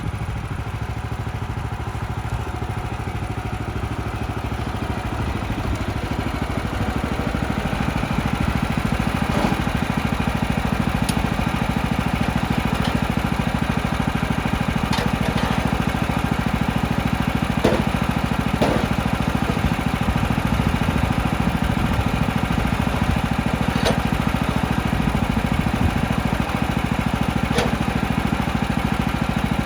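Small gasoline engine of a band sawmill running steadily, growing louder about seven seconds in, with a few faint knocks.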